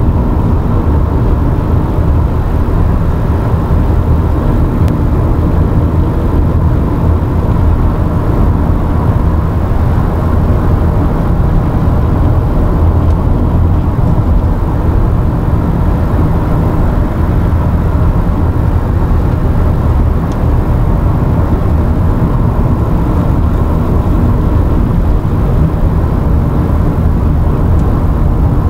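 Steady road and engine noise of a car cruising on the open road, heard from inside the cabin.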